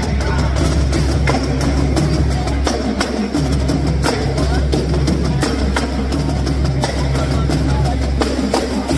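Music driven by drums: a drum kit keeps a steady beat of sharp hits over a sustained low bass.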